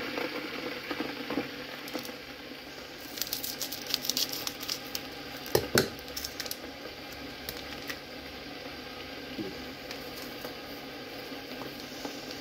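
Foil sachet of instant latte powder crinkling as it is handled and torn open: a run of sharp crackles, then a louder crinkle about halfway through, over a steady low hiss.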